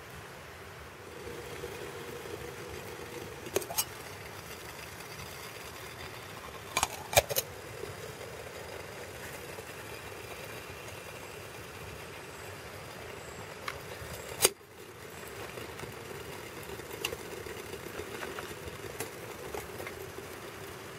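Wood-gas stove burning with a steady roar, broken by a few sharp clicks and cracks, the loudest about 7 and 14 seconds in.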